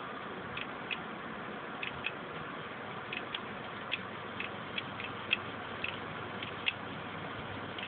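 Failed Seagate 2 TB hard drive clicking over and over, about two sharp clicks a second at slightly uneven spacing, over a steady hiss. The repeated clicking is the sign of a dead drive: its read/write heads keep seeking and resetting without reading the platters, the 'click of death'.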